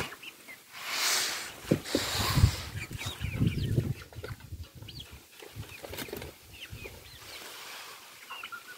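Hens calling with many short, high chirps as they forage, with rustling and a few low thumps in the first four seconds.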